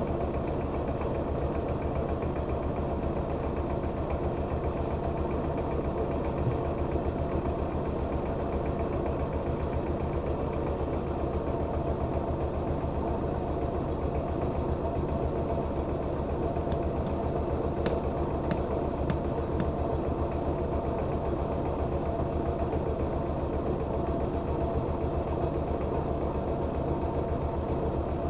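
Rice-milling machine running steadily under its engine, with the drive belt turning the mill. A few sharp clicks come through about two-thirds of the way in.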